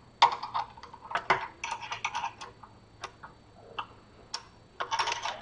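Steel nuts being worked on a threaded rod with a hand tool: irregular runs of small metal clicks and clinks.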